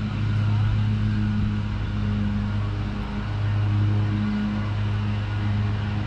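A motor running with a steady low hum, its pitch holding even.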